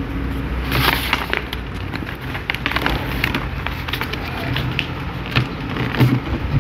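Sheet of A4 coloured paper crinkling and crackling as it is folded and creased by hand, a run of sharp little crackles, loudest about a second in.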